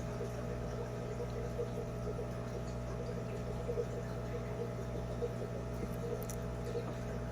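Steady low machine hum with a faint bubbling of water, as from a running pump.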